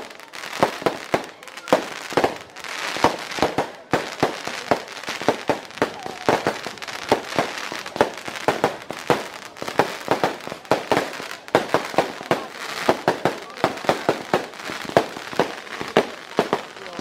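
Aerial fireworks going off in a fast, unbroken barrage: sharp bangs several times a second with crackling between the bursts.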